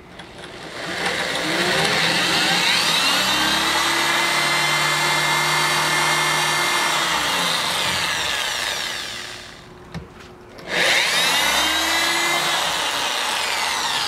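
Electric drill boring pilot holes into a stucco wall. The motor speeds up, runs steadily for several seconds, slows and stops; after a brief pause it starts again and runs on to the end.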